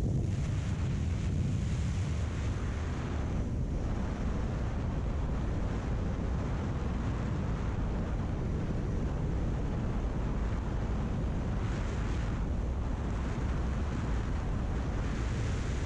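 Steady wind buffeting the microphone of a motorcycle riding at highway speed, a constant low rumble with a rushing hiss above it.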